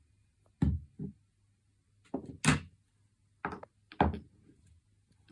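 Small bottles being handled and set down on a wooden floor and in a plastic basket: a series of irregular knocks and clunks, about seven in all, the loudest about two and a half seconds in.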